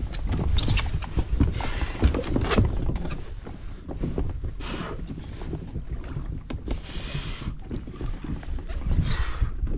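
Wind buffeting the microphone, with choppy sea water slapping and splashing against the side of a plastic kayak hull in several short hissy surges.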